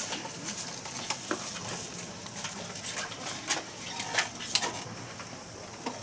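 Outdoor stadium background noise: a steady hiss with scattered faint clicks and knocks at irregular moments.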